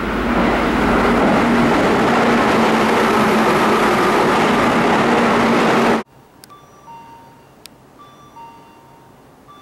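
An electric train running past, a loud steady rush with a low hum, cut off abruptly about six seconds in. After that comes a quieter two-note electronic platform chime, repeating: the signal for an approaching train.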